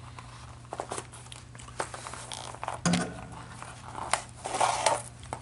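Handling noise: light clicks and taps with a couple of short rustles, most likely as the kit's soldering iron is picked up and turned over.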